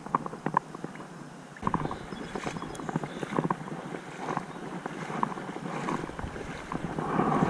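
Creek water splashing and rippling, with scattered small clicks and splashes and a little wind on the microphone.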